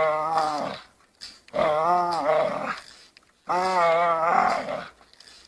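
A dog growling through clenched jaws while it bites and hangs from a tree branch: three drawn-out, wavering growls of about a second each, with short breaks between them.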